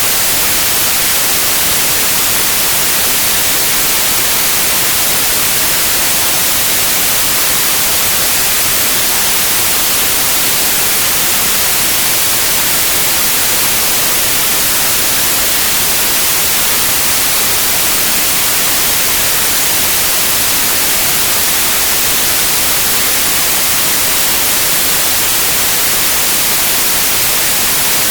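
Steady white noise: an even, unchanging hiss across the whole range, strongest in the highs.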